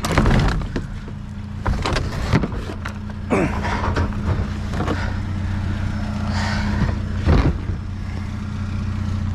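Vehicle engine idling steadily, with several separate thuds and clunks as a heavy, water-laden item is handled.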